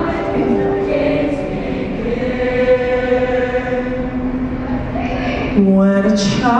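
Mixed-voice show choir singing long held chords, growing louder about five and a half seconds in, with a quick rising slide near the end.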